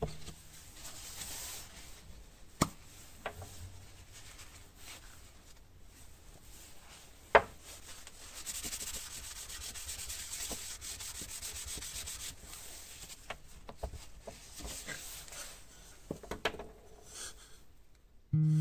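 A cloth rubbing over a stained wooden board, wiping the stain, steadiest through the middle. A few sharp knocks of wood on the concrete stand out, the loudest about seven seconds in.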